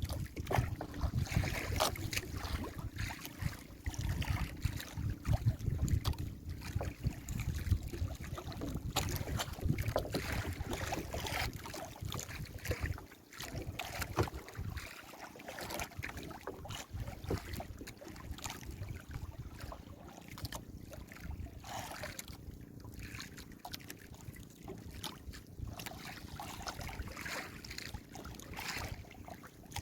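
Wind buffeting the microphone over choppy sea water splashing around a small fishing boat, rougher and louder in the first half and easing after about thirteen seconds.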